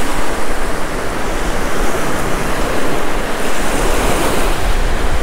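Small surf waves breaking and washing up onto a sandy beach, with wind buffeting the microphone.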